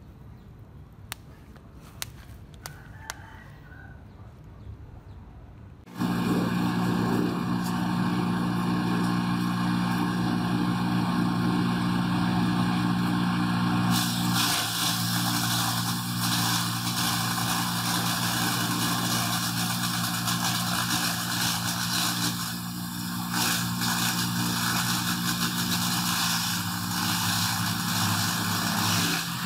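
Takyo TK3000 banana-stalk chopper starting about six seconds in, its 3 kW electric motor running with a steady low hum. From about fourteen seconds in, a banana trunk fed into the hopper is being shredded by the blades, adding a loud, dense rushing noise that continues.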